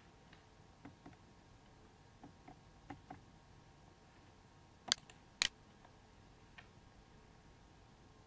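Faint, scattered clicks of a computer's controls, with two louder sharp clicks about half a second apart a little before the middle.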